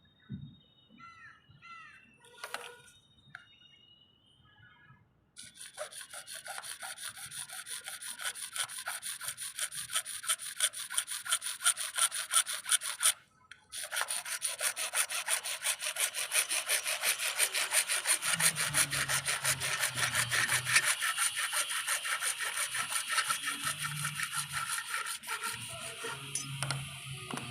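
Hacksaw cutting through CPVC pipe: quick, even back-and-forth strokes starting about five seconds in, with a brief pause about halfway through before the sawing resumes. A few light scrapes and clicks come before it.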